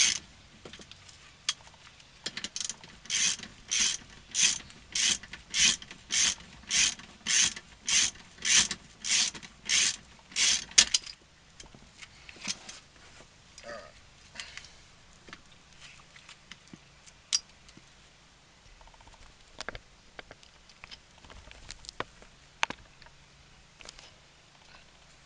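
Ratchet wrench with a T50 Torx bit backing out the seat belt buckle bolt: a run of about fourteen even ratcheting strokes, roughly one every 0.6 s. The strokes stop about eleven seconds in, and a few light clicks and knocks follow.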